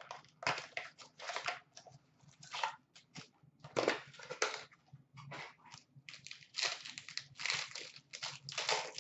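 Upper Deck SP Game Used hockey card packs being torn open and handled: wrappers crinkling and tearing in irregular short bursts, with cards shuffled between them.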